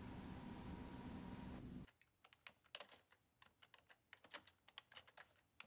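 Steady room hum for about two seconds, cut off abruptly, then typing on a computer keyboard: quiet, irregular key clicks.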